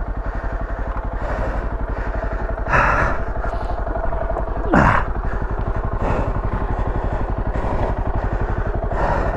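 2019 Beta ALP 4.0 dual-sport's Suzuki DR350-based single-cylinder four-stroke engine idling steadily with an even pulse. A few brief, louder rushes of noise sit over it, the loudest about three and five seconds in, the second with a quick falling pitch.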